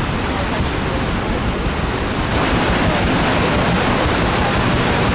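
Steady rushing and churning of water along the hull of a paddle steamer under way, with wind on the microphone; it grows louder about two seconds in.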